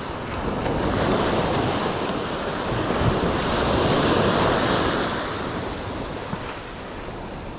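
Small surf waves breaking and washing up a sand beach at the water's edge, the rush swelling and easing, loudest about halfway through.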